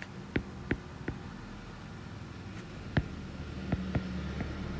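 Stylus tip tapping and clicking on a tablet's glass screen while handwriting, a string of short, irregular clicks with one louder tap about three seconds in, over a faint low hum.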